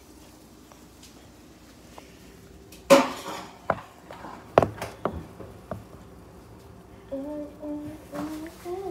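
Kitchen pans and utensils clattering: one loud clank about three seconds in, followed by several lighter knocks and clinks.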